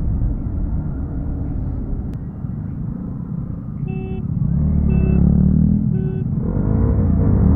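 Motorcycle engine rumble and wind rush while riding, with three short beeps about a second apart near the middle. Near the end a motorcycle engine revs up, its pitch rising and growing louder.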